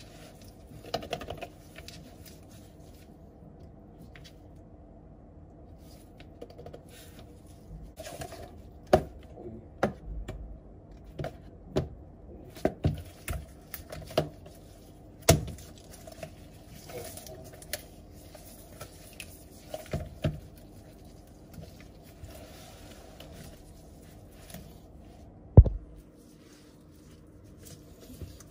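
Irregular clicks and taps of keys pressed on an iPad Pro's fabric Smart Keyboard Folio and of an Apple Pencil tapping the glass screen. There is a single louder thump near the end.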